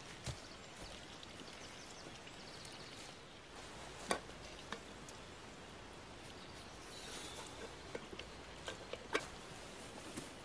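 Camp gear being handled and packed outdoors: a few sharp clicks and knocks, loudest about four seconds in and again near nine seconds, over a quiet woodland background with faint high chirps.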